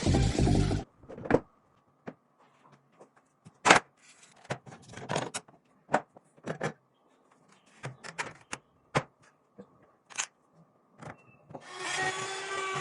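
Background music cutting off just under a second in, followed by scattered clicks, taps and light knocks of computer parts being handled during a PC assembly. Near the end a rustling scrape lasting about a second.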